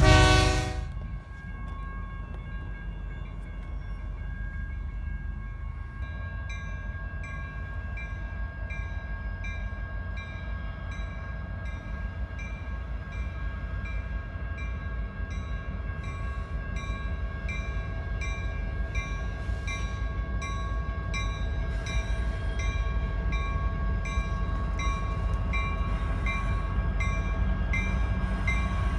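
A train horn chord cuts off about a second in. The low, steady rumble of a train follows and slowly grows louder, while a bell rings in an even rhythm from about six seconds in.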